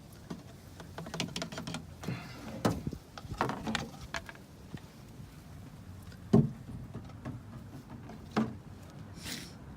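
Handling noises while working on the car: scattered light clicks and knocks, the loudest about six seconds in and another about two seconds later, with a brief hiss near the end.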